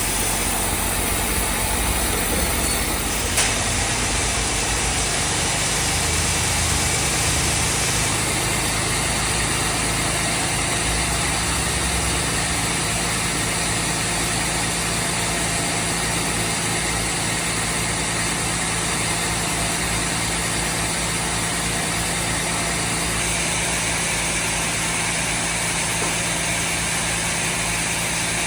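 A machine engine running steadily at an even pitch, with a single sharp click about three seconds in.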